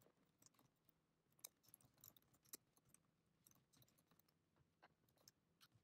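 Near silence with faint, irregular clicks of computer keyboard typing.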